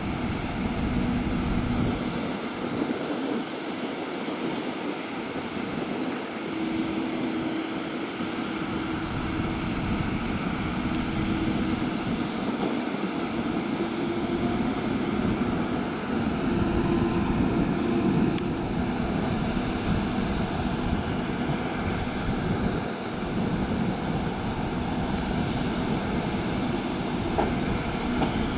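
Steady drone of aircraft engine noise with a constant low hum, and a low rumble that swells and fades.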